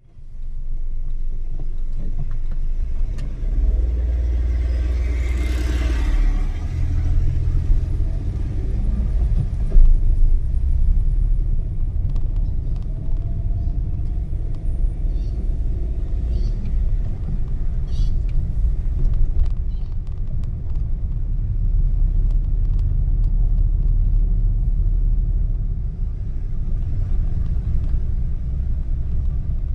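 Steady low rumble of a vehicle travelling along a road, with a broader swell of noise about five seconds in.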